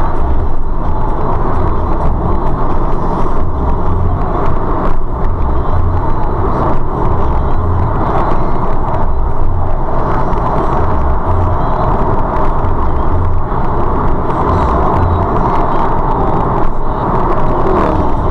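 Steady in-cabin road noise of a car cruising at around 50 to 60 mph: a low tyre-and-engine rumble with wind noise, recorded through a dashcam microphone.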